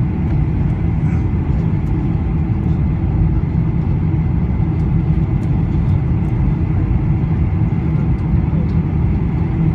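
Steady low rumble of a Boeing 747-400 airliner's engines and airflow, holding even throughout.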